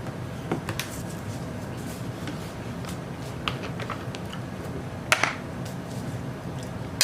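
Scattered light clicks and taps of eating at a table, with a sharper click a little after five seconds, over a steady low room hum.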